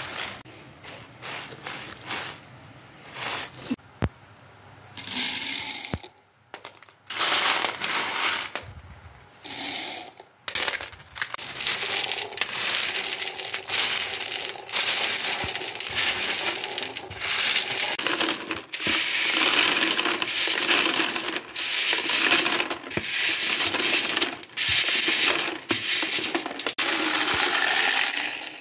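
Dried pulses (lentils, beans and chickpeas) rattling as they are spread over a metal tray and poured by hand into glass jars: a clatter of many hard grains on metal and glass. It comes in bursts with short breaks and grows denser and steadier in the second half.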